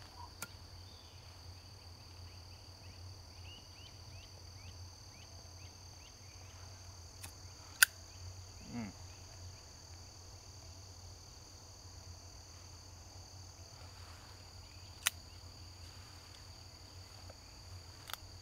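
Steady high drone of insects, with a short run of faint high chirps about four seconds in. Two sharp clicks about seven seconds apart, from a cigar lighter being struck.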